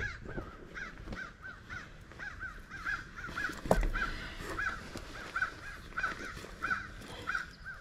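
A bird calling over and over in short arched calls, about two to three a second. A single thump comes about halfway through.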